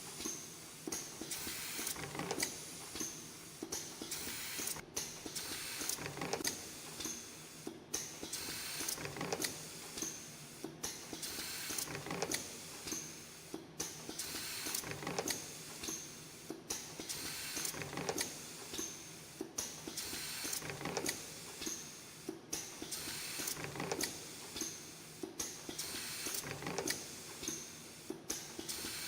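CNC extension-spring making machine (LE-210) running, coiling 0.18 mm wire and forming English-style hooks. Rapid mechanical clicking over a faint hiss, in a cycle that repeats about every three seconds.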